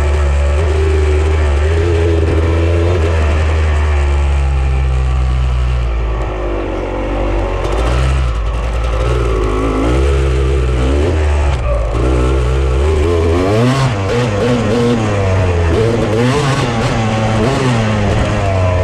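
Off-road vehicle engine running under a heavy low rumble while riding on trails. The revs rise and fall repeatedly, more often in the second half, with a few short clatters.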